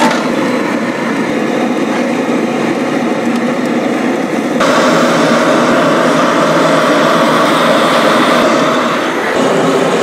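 Chicken stew bubbling and sizzling in a large cast-iron cauldron-lid pan over a wood fire. The steady noise turns suddenly louder and brighter about four and a half seconds in and eases a little near the end.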